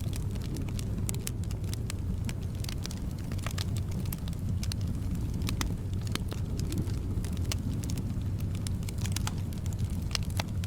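Wood fire in a fireplace crackling, with frequent irregular sharp pops over a steady low rumble and soft wind.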